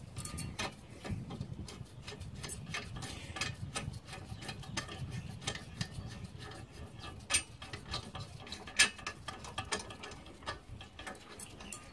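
Socket ratchet clicking in quick, irregular runs as the 19 mm brake caliper carrier bolt is wound out.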